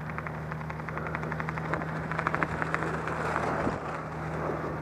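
Steady drone of a light propeller aircraft's engine, with rapid fluttering ticks over it that are strongest about midway.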